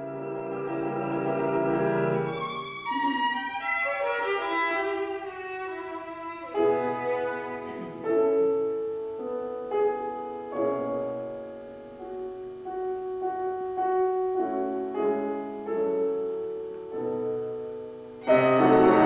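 Violin and piano playing classical music together in a live recording, with held violin notes over moving piano lines. A sudden louder, fuller passage comes in near the end.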